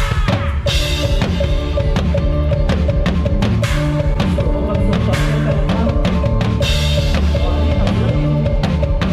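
Drum kit played hard with a live band: bass drum and snare driving a steady beat, with cymbal crashes three times, over bass and keyboard lines.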